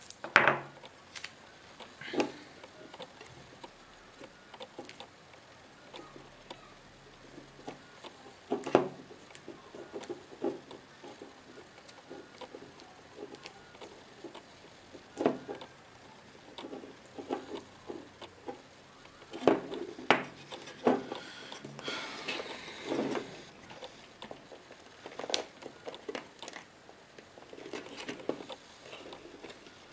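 Scattered clicks and taps of small plastic parts being handled and pressed into place as a Remington hair clipper's battery pack and circuit board are fitted back into its plastic housing, with a brief rustle about two-thirds of the way through.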